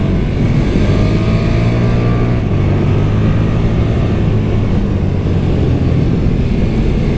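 KTM 1290 Super Duke R's V-twin on its stock exhaust, heard from on board while riding. Engine revs rise slightly over the first two seconds, the note changes about two and a half seconds in, and then it runs on steadily.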